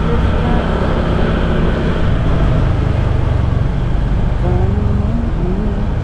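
Steady engine and road noise of a moving motor vehicle, heard from on board.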